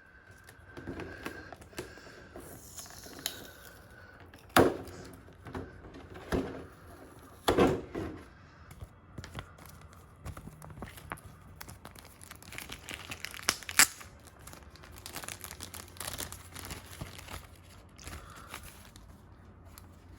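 Paper and plastic packaging crinkling and rustling as the instruction leaflet and box contents are handled, with a few louder knocks.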